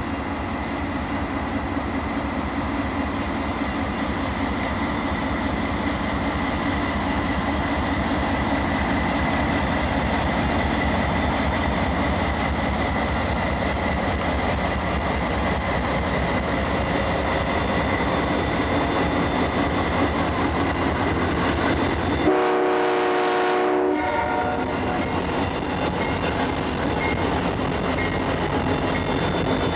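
CN freight train passing close by: the steady rumble of its diesel locomotives and rolling railcars. About three quarters of the way through, a locomotive horn sounds once for about a second and a half.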